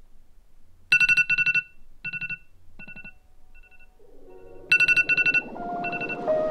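Phone alarm ringing: repeated groups of rapid electronic beeps, each cycle starting loud and trailing off, with a short low hum between cycles. Music fades in with rising notes over the last couple of seconds.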